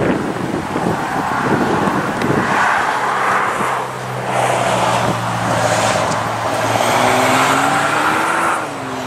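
Road vehicles moving slowly past: a steady engine drone with tyre and road noise, and one engine's pitch rising in the second half as it accelerates.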